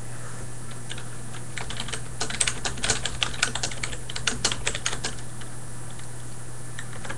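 Typing on a computer keyboard: a run of quick, irregular key clicks from about two seconds in until about five seconds in, over a steady low hum.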